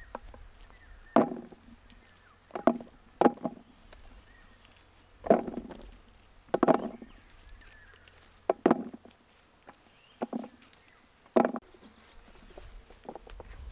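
A series of short, irregular knocks and thuds, about nine, some in quick pairs.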